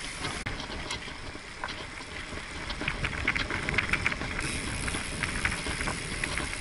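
Wind rushing over a bicycle-mounted camera's microphone while riding, with low road rumble and scattered rattling clicks from the moving bike.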